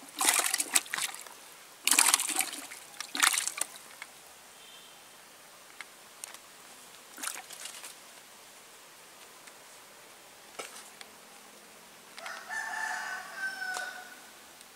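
A fish thrashing in a plastic bucket of water, splashing several times in the first few seconds and then settling with only small splashes. Near the end a rooster crows once.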